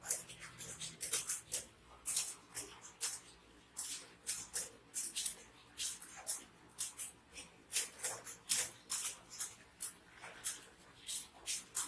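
Computer keyboard keys being typed in a steady, quick run of irregular clicks, several a second.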